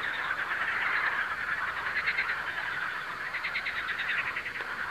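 Chorus of frogs calling from a pond: a steady trilling din, with bursts of rapid pulsed trills about two seconds in and again between three and four seconds.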